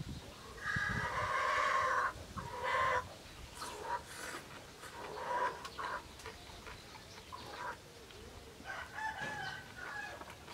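A rooster crowing: a long held call about a second in, then a shorter call, with weaker calls after it and another crow near the end.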